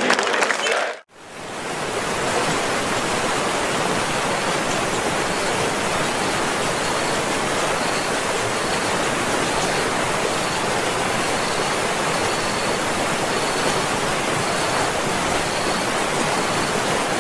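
Waterfall: a steady, even rush of falling water that fades in about a second in and holds. Before it, stadium crowd chanting fades out.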